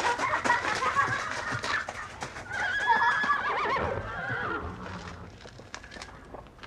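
A horse whinnying in long, wavering calls that die away after about four and a half seconds, with hooves clopping.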